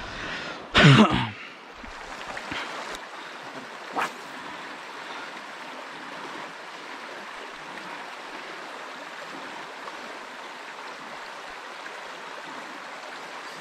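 River current running over gravel, a steady rushing hiss of water. A short loud burst of a person's voice comes about a second in, and a single click a few seconds later.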